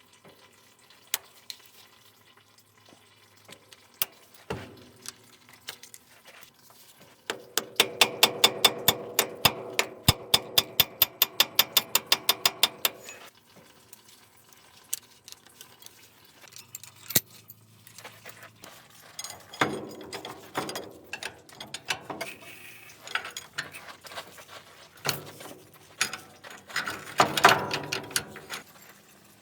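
Hand tools working on the steering cylinder's metal parts: scattered clinks and knocks, then a ratchet wrench clicking fast and evenly for about six seconds. Later come more irregular metallic knocks and scraping.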